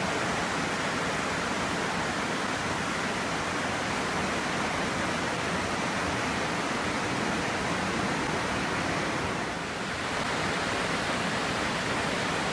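Smith River in flood, swollen brown water rushing over rapids as a steady, even rush of water, briefly a little quieter about nine and a half seconds in.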